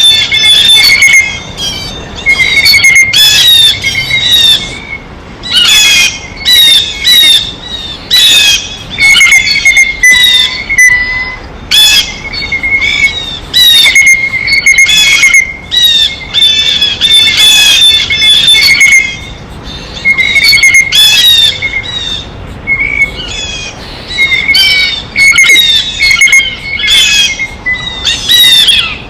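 Blue jays calling: loud, harsh squawking calls given over and over in quick runs, with short pauses between bouts.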